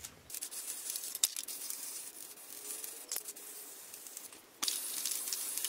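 Aerosol spray paint can spraying black paint: a faint hiss with a few light clicks, then a louder, steady spray hiss that starts suddenly about four and a half seconds in.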